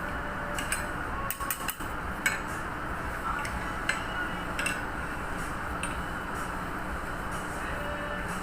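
Metal parts clinking and clicking a handful of times as the spring-compression special tool is released and taken off a diesel fuel injection pump, over a steady background hum.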